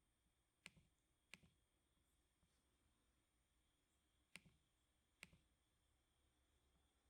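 Four sharp, isolated clicks from a computer keyboard, in two pairs a few seconds apart, over a very quiet room.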